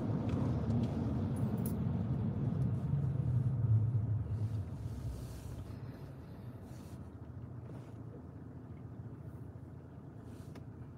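Car cabin noise while driving on a wet road: a low rumble of engine and tyres that eases off about five seconds in as the car slows.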